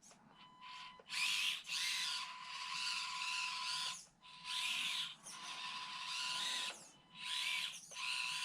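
Axial SCX24 micro RC crawler's small electric motor and gear drivetrain whirring in several bursts of one to three seconds as the throttle is applied and released, a steady high whine under each burst.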